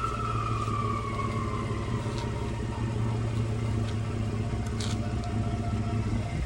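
Ford F-150's 3.5 EcoBoost twin-turbo V6 idling steadily through an exhaust fitted with the factory rolled tip. A whistle falls in pitch over the first two seconds as the engine settles back to idle.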